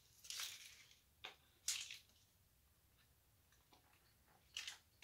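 Faint handling noises as jewelry is moved about: four short, soft rustles, about half a second in, at about a second and a quarter, just under two seconds, and near the end, with near silence in between.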